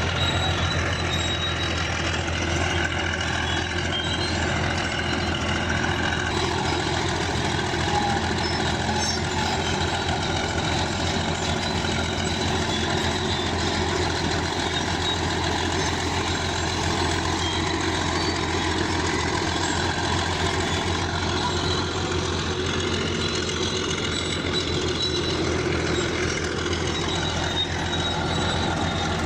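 Bulldozer's diesel engine running steadily, a constant low hum with a spread of steady higher tones over it.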